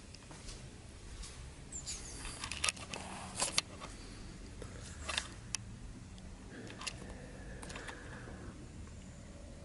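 Light clicks and clinks of small objects being handled, loudest a few seconds in, over a low steady hum.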